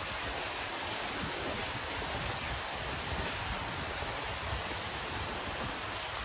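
Wind blowing across the microphone: an even hiss with a shifting low rumble underneath.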